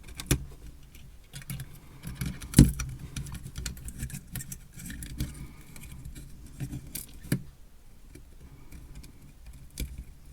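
Small tools and wires being handled at a workbench: scattered clicks, taps and light rattles, with a sharper knock about two and a half seconds in.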